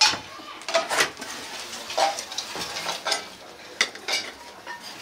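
A shovel knocking against a sand mold and a freshly cast aluminium cooking pot, with metal clanks and scraping in the sand as the mold is broken open and the pot dug out. The knocks come irregularly, about one a second, some with a short ring.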